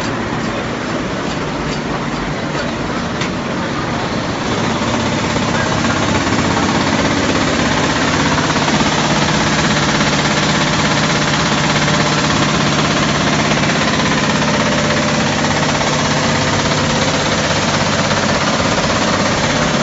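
Sand drying plant running: the motors, belt conveyor, rotary dryer drum and vibrating screen make a loud, steady mechanical noise with a low hum. It grows a little louder about five seconds in.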